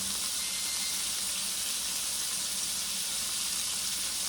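Tri-tip steaks sizzling steadily in butter in a frying pan.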